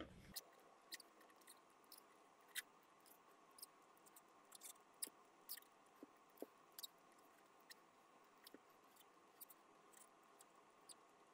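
Near silence broken by faint, irregular clicks: the push button on a dolphicam2 ultrasound transducer being pressed to start and stop each stitch tile as the probe is moved across the plate.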